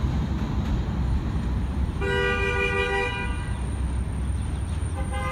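NYC subway train's horn sounding as the train approaches the elevated station: one blast of a bit over a second about two seconds in, and a second blast starting near the end, over a steady low rumble.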